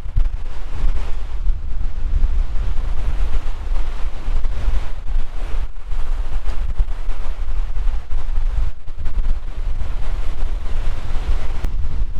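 Strong wind buffeting the microphone: a loud, unsteady low rumble with no break.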